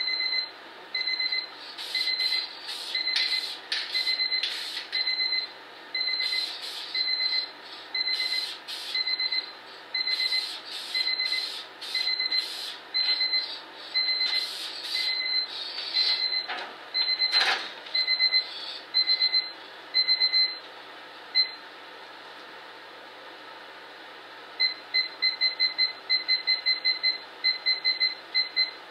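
Aerosol spray paint can hissing in short passes as light coats of paint go on, over a high electronic beeping at about one beep a second. The spraying stops about two-thirds of the way through, and near the end the beeping turns into quick runs of beeps.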